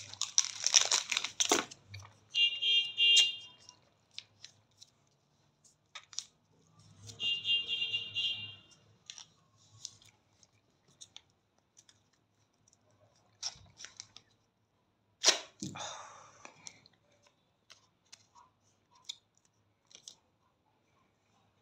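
Ready-to-use wax strips being handled: a plastic strip packet crinkles at the start, then two drawn-out sticky peeling sounds, about a second each, as the strips are pulled apart. Scattered small rustles follow, and one sharp tearing rip comes about fifteen seconds in.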